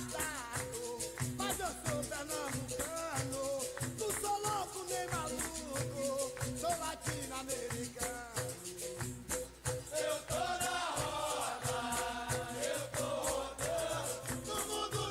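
Capoeira music: singing over berimbau with the caxixi rattle and a steady percussion beat, with more voices joining in from about ten seconds in, like a chorus answering.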